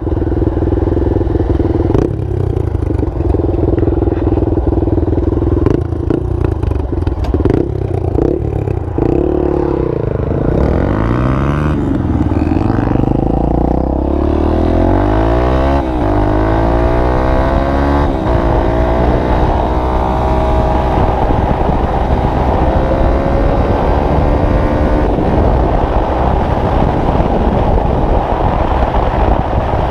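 Single-cylinder four-stroke trail motorcycle engine running under way off-road, its pitch rising and falling several times in the middle as the rider opens and closes the throttle through the gears, then holding steadier. Clicks and rattles from the bike over rough ground come through in the first several seconds.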